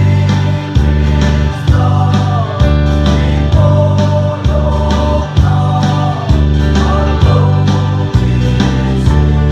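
A men's group singing a gospel hymn together, over an accompaniment with deep bass notes and a steady beat of roughly one stroke a second.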